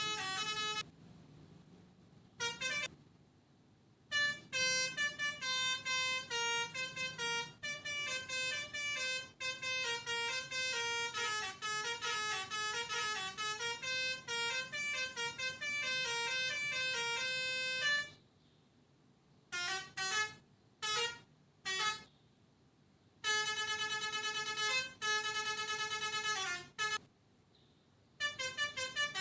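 Pianika (melodica) playing a Basuri telolet bus-horn tune: quick runs of short, reedy notes in phrases, broken by several brief pauses.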